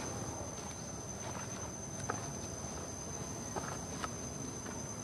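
Steady high-pitched insect drone over outdoor ambience, with a few faint scattered ticks and rustles in leaf litter.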